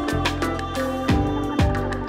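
Background music with a steady beat, about two beats a second, over held melodic notes.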